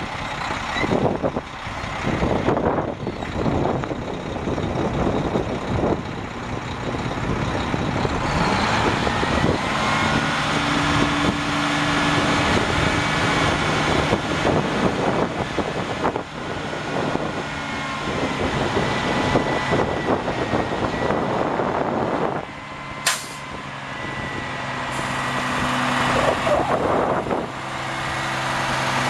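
Cummins M11 inline-six diesel of a dump truck running while the PTO-driven hydraulic hoist raises the aluminum dump body, a steady whine over the engine note. Near the end the sound dips briefly, with one sharp snap.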